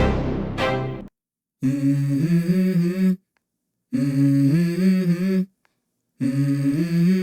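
Music: a few ringing chords die away about a second in. Then a voice hums three short melodic phrases, each about a second and a half long, with silent gaps between them, as a song's intro.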